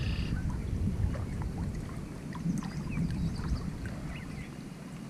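Water sloshing with light splashes, over wind rumbling on the microphone.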